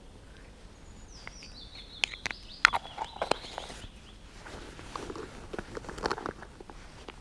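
A songbird sings one phrase of high notes that step down in pitch. Close, sharp clicks and rustling handling noises sound over it, in two clusters: the loudest click about two and a half seconds in, and another group near six seconds.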